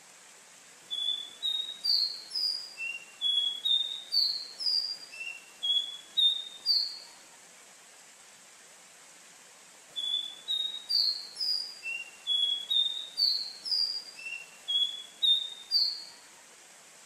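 A caboclinho, a Sporophila seedeater, singing: two phrases of quick, clear whistled notes that slur up and down in pitch, each about six seconds long, with a pause of about three seconds between them.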